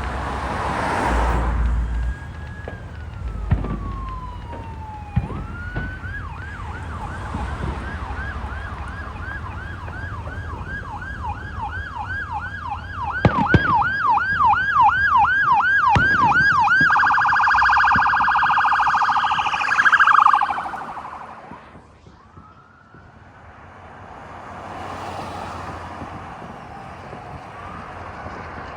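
Electronic siren on a responding ambulance: a wail sliding down in pitch, then a yelp cycling about twice a second. About 17 s in it switches to a rapid warble, which stops suddenly about three seconds later. A few sharp pops sound during the yelp.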